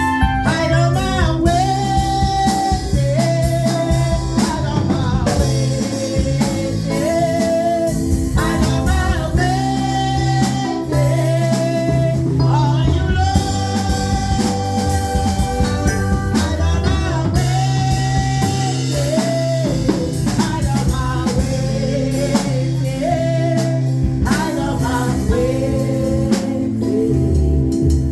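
Gospel song: a woman singing a slow melody of long held notes over a band accompaniment with drums and a steady beat.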